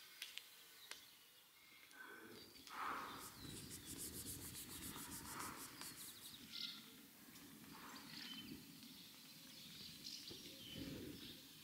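Faint outdoor background with birds chirping now and then. A few soft clicks come near the start, and a soft rustle runs from about two seconds in.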